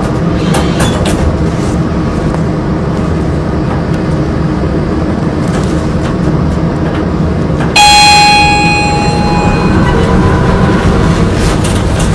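Lift car running with a steady low rumble. About eight seconds in, a single electronic ding of the lift's arrival chime rings out and fades over about two seconds.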